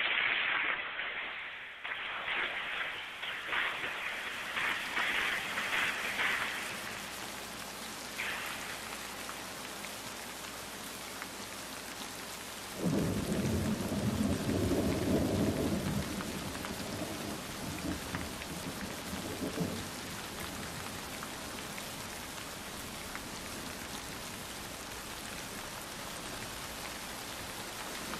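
Steady rain on a surface, with a louder hiss in the first few seconds and a long roll of low thunder starting about thirteen seconds in and dying away after about seven seconds.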